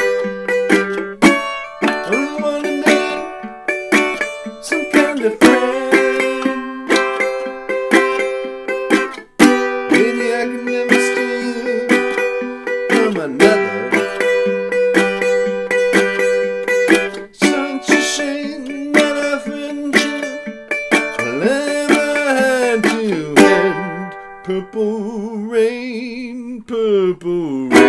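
Resonator tenor guitar (a JN Guitars Cask Puncheon, capoed at the fifth fret) picked in a fast bluegrass style: a steady run of bright plucked notes with a few sliding notes along the way.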